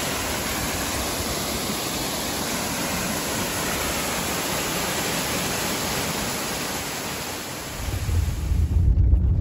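Mountain waterfall pouring down a rock face: a steady rush of falling water. Near the end a low rumble takes over.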